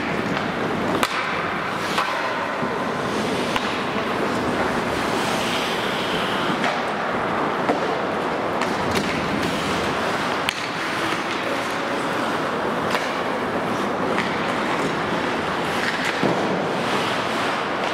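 Hockey skates scraping and carving on rink ice, with scattered sharp clacks of sticks and puck.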